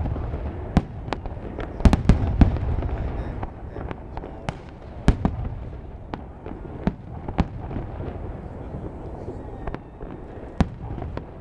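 Fireworks display: aerial shells bursting in an irregular string of sharp bangs over a low rumble. The bangs come thickest in the first few seconds, then thin out to scattered reports.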